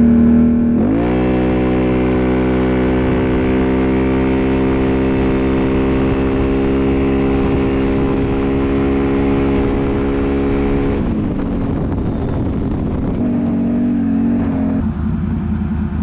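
Can-Am Renegade 1000 XMR's V-twin engine at full throttle: the revs shoot up about a second in, then hold at one steady pitch while the ATV keeps gaining speed, as the CVT clutch shifts out. About eleven seconds in the throttle comes off, the revs fall, and the engine runs on at a lower pitch.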